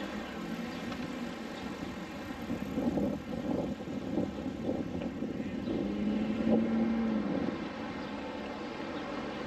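A motor vehicle's engine hum with a steady low tone, swelling louder about six to seven seconds in as a vehicle draws close.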